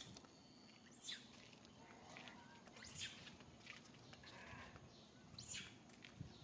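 Pigtail macaque calls: three short, high-pitched squeals about two seconds apart, faint.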